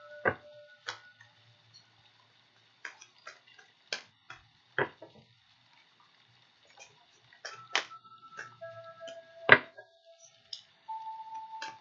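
Irregular sharp taps and clicks, some followed by a single ringing note held for about a second, each at a different pitch.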